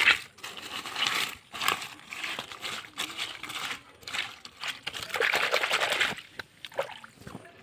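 Hands rummaging through wet leaf litter in shallow water: irregular rustling, crackling and small splashes, with a longer burst of stirring about five seconds in.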